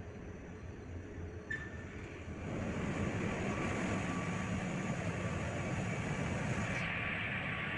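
Steady machinery din of a large ship's engine room, with a constant hum and thin steady whines. A short click comes about a second and a half in, then the noise gets clearly louder a second later and stays there.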